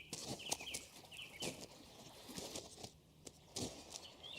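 Birds chirping in small groups of quick short notes, over soft intermittent footsteps on a path.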